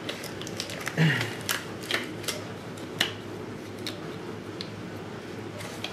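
Thin disposable plastic glove being pulled onto a hand: a scatter of sharp crinkles and snaps spread over several seconds.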